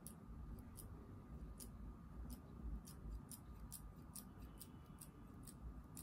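Grooming scissors snipping a Bichon Frise's fur: a series of faint, quick snips at irregular spacing, coming faster in the second half, as uneven lengths of coat are evened out.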